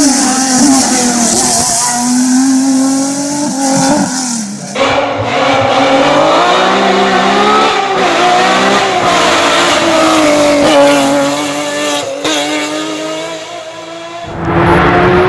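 Lancia Stratos's 2.4-litre Ferrari Dino V6 revving hard, its pitch climbing and dropping again and again through gear changes, across a few cut-together passes. A loud high hiss sits over the first few seconds.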